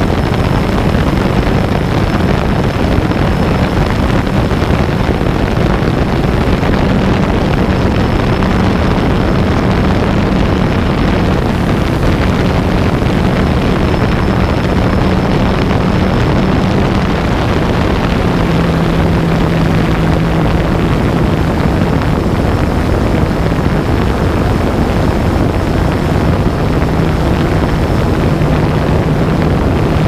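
DJI Phantom 2 quadcopter's motors and propellers running steadily, picked up close by the camera on the drone, with wind rush; the low hum dips slightly in pitch about halfway through, and a faint high whine comes and goes.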